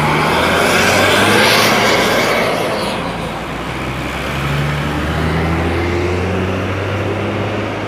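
Tour coaches driving slowly past one after another: a loud rushing swell as one passes close during the first three seconds, then the low steady hum of the next coach's diesel engine as it approaches.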